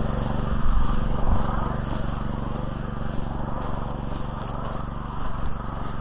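Oka walk-behind tractor's engine running steadily at an even speed.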